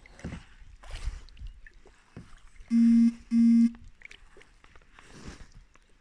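Water swishing and lapping as a small boat moves slowly across a lake. About three seconds in come two loud, short electronic beeps, each about half a second long, half a second apart.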